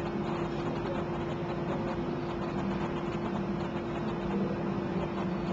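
Steady mechanical hum with one constant tone and an even background noise, no distinct events.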